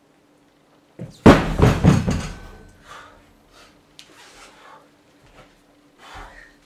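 Two 29 kg cast-steel kettlebells coming down onto a mat-covered floor: a heavy thud about a second in, then a quick cluster of knocks and clanks dying away. Quieter knocks and shuffling follow.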